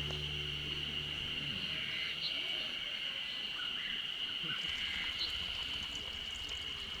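Background music fading out in the first second and a half, leaving a steady high-pitched insect chorus with a few short chirps over it.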